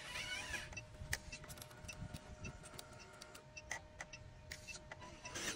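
Faint steady electric whine with scattered light clicks from a radio-controlled dump truck's tipper motor and gearing as the raised bed lowers.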